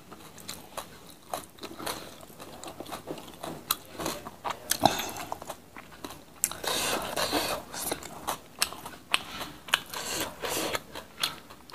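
Close-miked chewing and crunching of food eaten by hand: many sharp short clicks, with a denser stretch of crunching a little past the middle.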